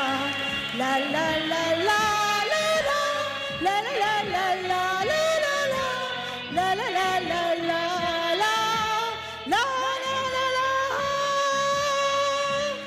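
A woman singing a Bollywood-style song over backing music, her melody gliding between notes and ending on a long held note that stops abruptly.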